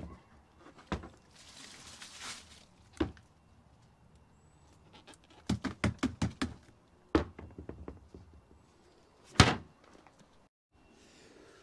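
A black plastic pool basket is knocked against the rim of a plastic wheelie bin to shake out leaf debris: scattered knocks, then a quick run of about eight about halfway through. Near the end comes a single loud thud as the wheelie bin lid is shut.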